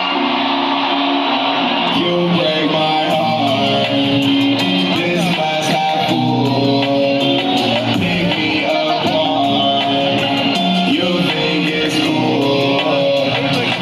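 Live concert music played loud through an arena sound system, heard from the audience, with guitar prominent in the mix.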